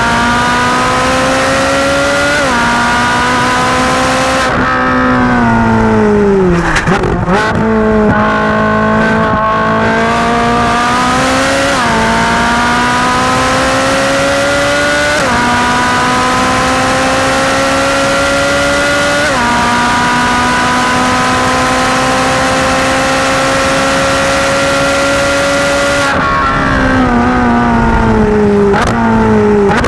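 Ferrari 458 Speciale's 4.5-litre naturally aspirated V8 at full throttle on track, heard through its seven-speed dual-clutch gearbox. The revs climb and drop sharply at each upshift, with a run of upshifts every three to four seconds in the middle. Twice, early on and again near the end, the revs fall in steps as the car slows and downshifts with throttle blips.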